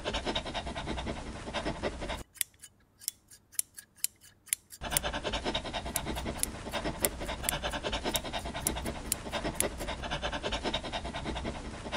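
Grooming shears snipping through a toy poodle's curly coat in quick continuous runs of cuts. About two seconds in the snipping thins to a few single snips for a couple of seconds, then the rapid cutting resumes.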